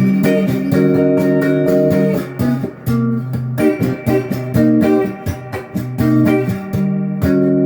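Les Paul-style electric guitar on its stock pickups, both pickups selected, played clean through an amp: picked chords and single notes ringing out, with frequent new attacks.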